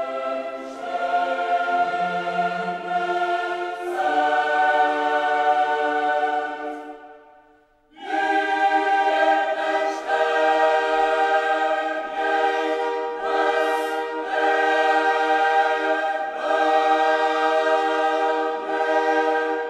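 Background music: a choir singing long held chords. It fades out about seven seconds in and comes back a second later.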